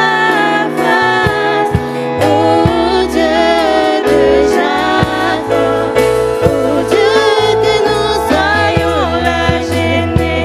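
Two women singing a French gospel worship song into microphones, holding and bending long notes over instrumental accompaniment with low bass notes and light percussive hits.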